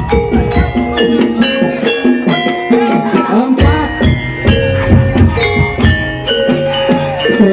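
Live Javanese percussion music accompanying tiban: hand drums beating under struck, ringing metal-keyed instruments playing a quick repeating melody. The low drum drops out for about two seconds in the middle and then comes back in.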